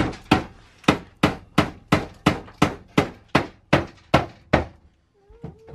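A hammer striking steadily, about three blows a second, each with a short ring, stopping about four and a half seconds in.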